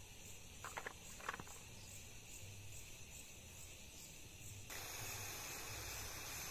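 Crickets chirping steadily, with a few light clicks about a second in. Near the end a steady hiss takes over: a portable butane gas stove burning under a pan.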